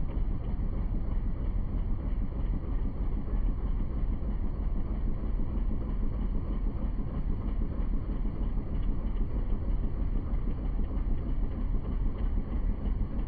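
Boat's motor running steadily, heard from aboard as an even low rumble, with wind on the microphone.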